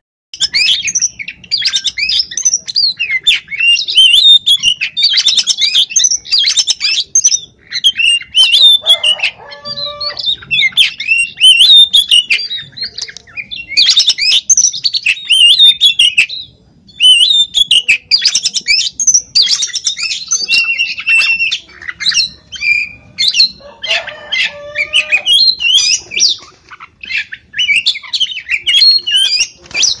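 Oriental magpie-robin singing loudly and almost without a break: a fast, varied run of whistles, trills and harsh notes, with a short lull about halfway through.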